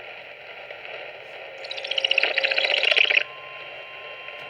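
Emergency Alert System SAME header: a loud, buzzy, rapidly chattering digital data burst about a second and a half long, starting under two seconds in. It is the coded header that opens an EAS alert. A faint steady tone starts as it ends.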